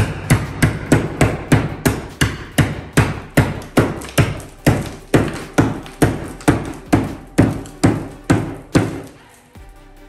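Claw hammer striking drywall in a steady run of blows, about three a second, knocking a hole down the wall. The blows stop about a second before the end.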